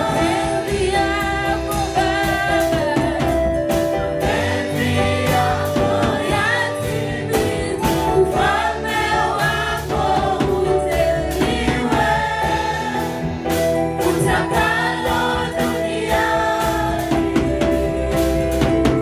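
Gospel choir singing a Swahili worship song, a woman leading with the choir behind her, over a steady drum beat.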